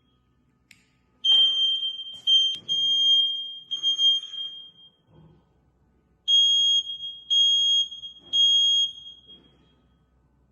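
Photoelectric smoke alarm sounding, set off by test smoke: loud, steady high-pitched beeps about a second apart, coming in groups of three with a pause between groups. A few short knocks and rustles of handling come between the beeps in the first half.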